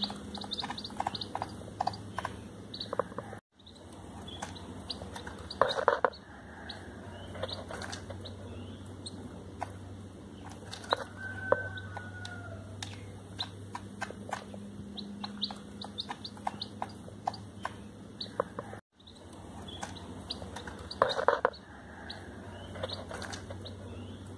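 Cheena Aseel hen with her newly hatched chicks in a coop: chicks peeping amid many small taps and clicks. Two louder short bursts come about six seconds in and again near twenty-one seconds.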